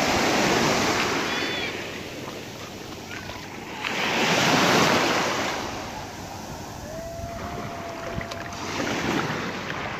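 Small waves breaking and washing over a shallow shore of coarse sand and gravel, coming in swells, the loudest about four to five seconds in.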